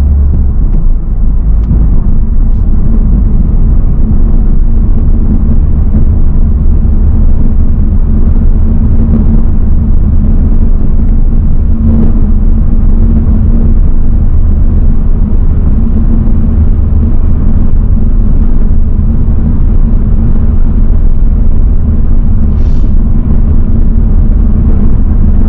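Honda Civic Type R FL5's turbocharged 2.0-litre inline-four running steadily at cruise with tyre and road rumble, heard inside the cabin while driving through a road tunnel.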